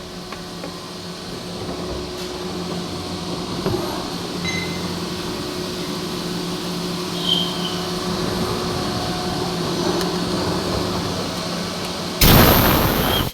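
CNC lathe running with a steady mechanical hum and a couple of faint clicks. Near the end comes a loud rush of noise lasting about a second, which then cuts off suddenly.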